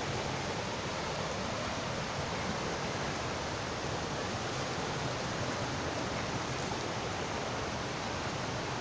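Steady rushing of water from a small waterfall tumbling over rocks.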